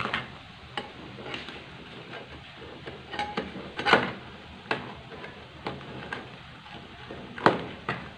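Metal ladle stirring crab in a thick coconut-milk curry in a metal wok, clinking and knocking against the wok at irregular moments about ten times, over a faint steady hiss.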